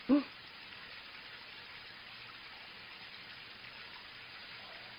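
A short voice-like sound right at the start, then a steady faint hiss of background noise for the rest.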